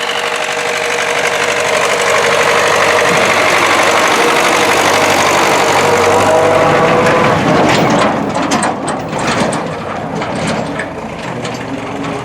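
MTZ-80 tractor's four-cylinder diesel engine running. It runs steadily at first, then turns rougher and uneven about eight seconds in, with a rapid knocking clatter.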